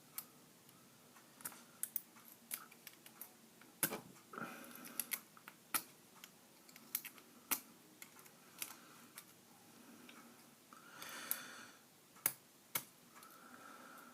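Lockpicks and a Master padlock being handled and picked: irregular sharp metal clicks with a few brief scrapes.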